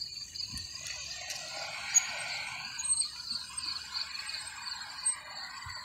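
Electric bike coasting to a stop, its rear freewheel ratchet ticking steadily, with a few sharper clicks.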